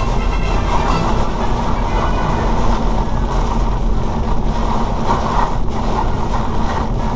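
Heavy rain and tyre spray heard from inside a Volkswagen Golf VII's cabin at motorway speed: a loud, steady rush over a constant low drone.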